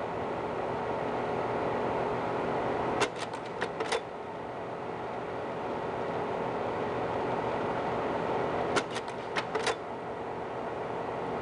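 Slide projector running, its cooling fan giving a steady hum and hiss. Twice, about three seconds in and again about nine seconds in, a quick run of about five mechanical clicks over a second as the projector changes to the next slide.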